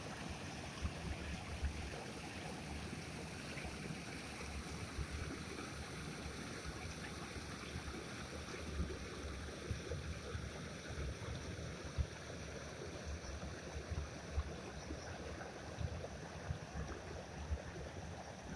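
Small stream rushing and splashing over a low step and stony riffles, a steady water noise. Wind buffets the microphone in irregular low thumps.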